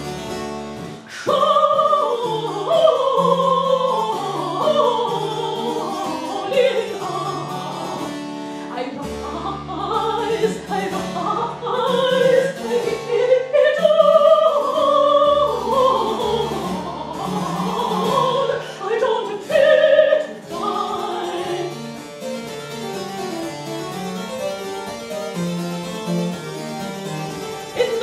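Mezzo-soprano singing in operatic style to a harpsichord accompaniment. The voice drops out briefly about a second in, then returns.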